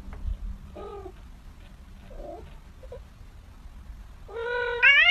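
Cat meowing: a few soft, short meows, then one long, loud meow that starts about four seconds in and rises in pitch.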